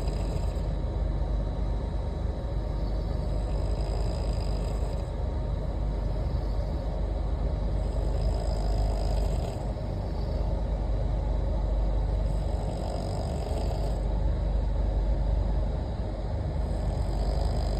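Person snoring in a moving train's Third AC coach, a snore about every four seconds over the train's steady running rumble.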